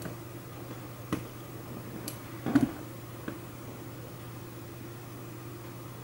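A steady low hum with a few short, sharp clicks; the loudest clicks come in a quick cluster about two and a half seconds in.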